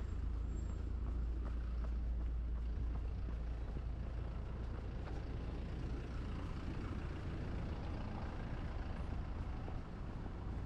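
City road traffic: the steady low rumble of a large vehicle's engine over a haze of street noise, fading after about eight seconds.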